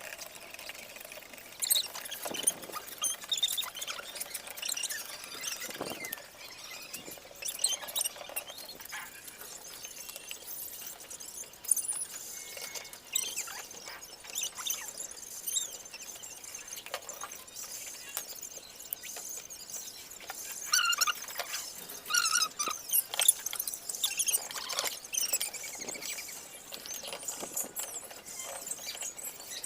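Irregular high-pitched squeaking and scraping with scattered small clicks and knocks, from cleaning and handling the parts of a halogen disco light fixture.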